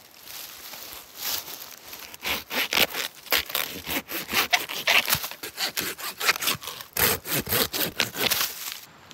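Curved-blade hand pruning saw cutting through a dead wooden branch in quick back-and-forth strokes. The sawing starts about two seconds in and stops just before the end.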